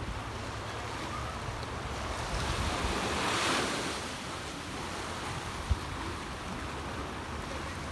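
Small ocean waves washing up onto sand between rocks, one wash swelling and fading about three and a half seconds in. Low wind rumble on the microphone throughout, and a brief low thump a little before the end.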